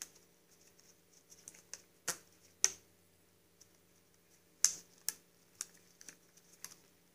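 Scattered light clicks and taps of small metal parts being handled: the bolts of a removed lawn-mower starter motor knocking against its housing as a rubber band is wrapped around them, with a few sharper clicks about two, four and a half and five seconds in.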